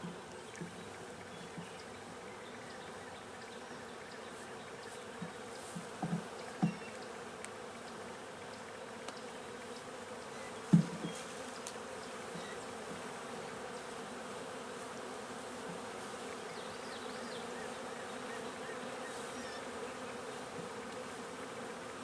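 A swarm of honeybees buzzing steadily as their frames are lifted out and brushed off, disturbed enough that they are expected to get mad. A few knocks stand out over the hum, the loudest about eleven seconds in.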